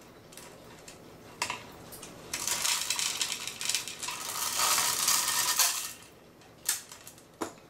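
Cuckoo clock weight chain rattling and jingling as it is drawn through the hole in the bottom of the clock case, a continuous clatter of metal links for about three and a half seconds. A few sharp metal clicks come before and after it.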